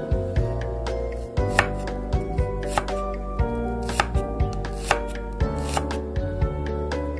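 Chef's knife slicing a red onion on a wooden cutting board: a string of sharp, irregularly spaced taps as the blade cuts through and strikes the board, over soft background music.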